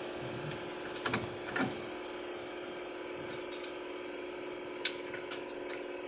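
A steady machine hum, with sharp clicks about a second in, again half a second later, and near the end, from hands working the air horn's wiring and fittings.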